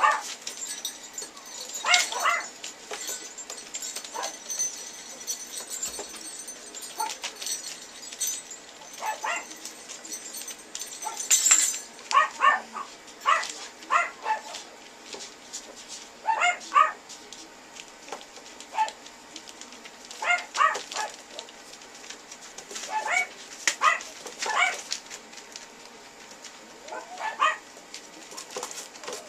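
Toy poodle puppies yipping and barking: short high calls scattered irregularly, sometimes two or three in quick succession.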